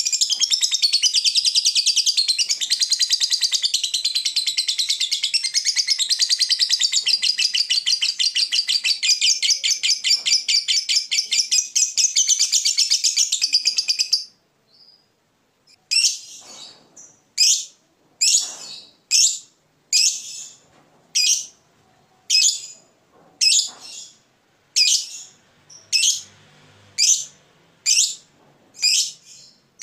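Fischer's lovebird giving a long, fast, unbroken chattering trill (the 'ngekek panjang' prized in contest lovebirds) that stops abruptly about halfway through. After a brief pause it gives a string of separate sharp chirps, roughly one a second.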